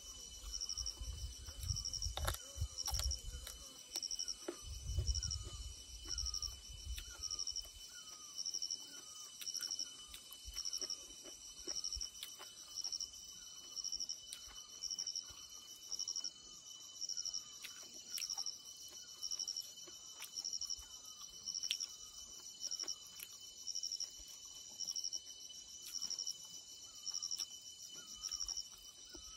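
Insects chirping outdoors: a high pulsed chirp repeating in short bursts about once every second and a bit, over a steady high insect tone. A low rumble sits under the first eight seconds, and faint clicks come and go.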